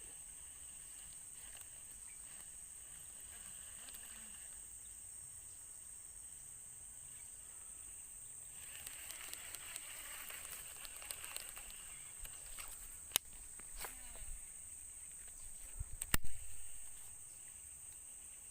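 Insects droning steadily on a high, even pitch. Through the second half there is rustling with small clicks, then two sharp knocks, the louder one near the end.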